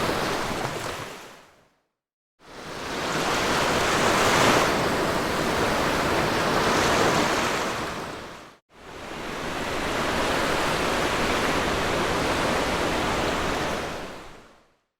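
Sea waves breaking and washing on a beach, a steady rush of surf that swells a little now and then. The sound fades out to silence about two seconds in, and again near the end, and cuts out for an instant around the middle.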